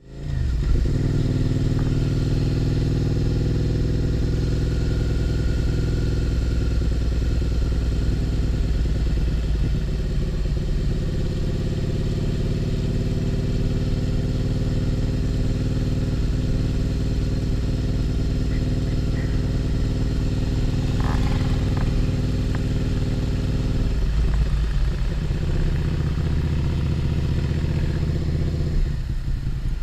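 Motorcycle engine running steadily while being ridden at low speed, heard from the rider's position. The engine note changes about 24 seconds in and again near the end.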